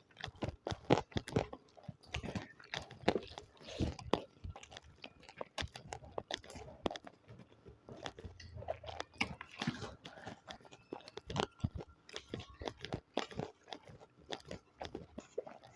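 Close-miked chewing with many irregular crunchy bites, a person eating with their mouth near the microphone.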